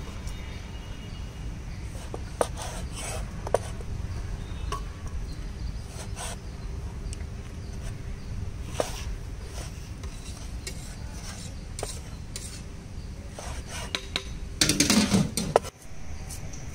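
Steel cleaver knocking on a wooden cutting board as a tomato is sliced: single chops a second or two apart, then a short quick run of chops near the end as green chillies are cut.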